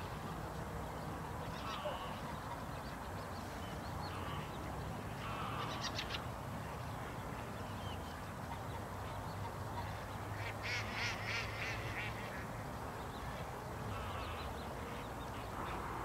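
Waterfowl calling on a lake: scattered short calls, with a quick run of calls about ten to twelve seconds in, over a steady low hum.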